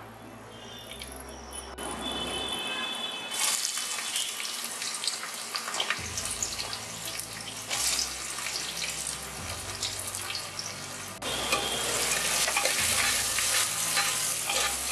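Whole spices sizzling in hot oil in an aluminium pressure cooker, then sliced onions frying in the oil: the sizzle grows much louder about three seconds in and again a few seconds before the end.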